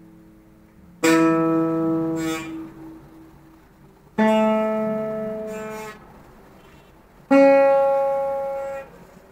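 Acoustic guitar played as single slow strums: three chords, each strummed once and left to ring for a second or two before it dies away or is stopped.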